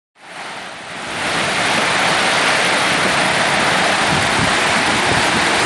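Heavy downpour falling on a translucent corrugated roof overhead, with wind: a dense, steady rush of rain that builds over the first second and then holds.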